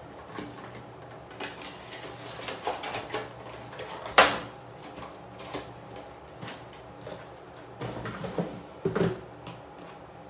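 Small items being picked up and set down by hand: a run of light clicks and knocks, with one sharp knock about four seconds in and a cluster of clatters near the end.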